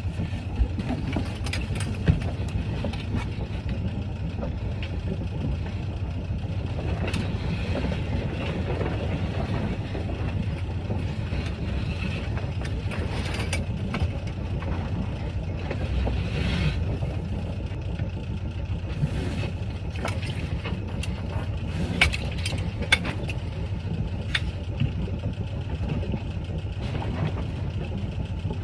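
Small boat's engine running steadily at low revs, a low even hum, with a few sharp knocks from gear on deck, one about two seconds in and another well past the middle.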